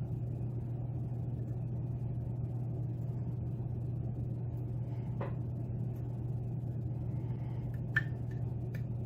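A steady low hum, with a few faint clicks about five seconds in and near the end from a lock pick working the pins of a Yale pin-tumbler lock as they set.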